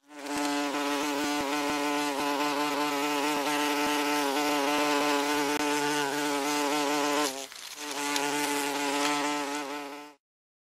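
A wasp's wings buzzing: a steady hum with a slightly wavering pitch that drops away briefly about seven and a half seconds in, comes back, and cuts off suddenly shortly before the end.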